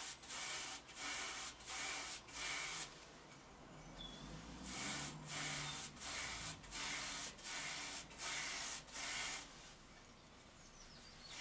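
A bristle brush scraping back and forth across a woven cane chair seat, working light finishing oil into the weave in strokes of about two a second. The strokes come in two runs with a short pause between, and stop shortly before the end.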